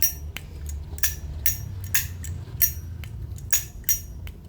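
Zippo Armor lighter with a thick-walled case, its lid flicked open and snapped shut over and over: a string of sharp metallic clicks with a bright ring, about two a second.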